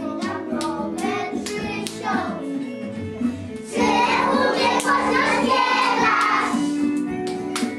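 A group of preschool children singing a song together, clearly louder from about four seconds in.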